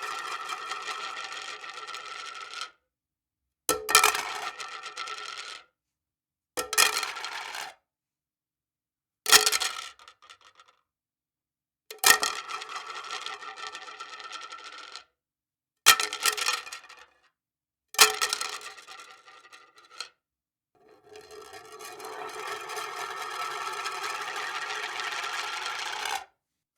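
Plastic plate hitting a hard surface over and over, about seven times, each hit followed by a rattling ring lasting one to three seconds. Near the end comes a longer rattle that swells gradually for about five seconds and then stops suddenly.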